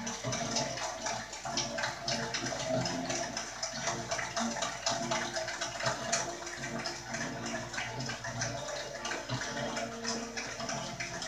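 A large crowd cheering and applauding, heard through a television's speaker.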